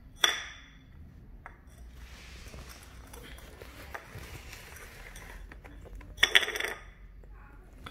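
A kitten eating from a small ceramic dish on a tile floor. The dish clinks sharply once near the start and again in a quick clatter of knocks about six seconds in, with faint eating sounds between.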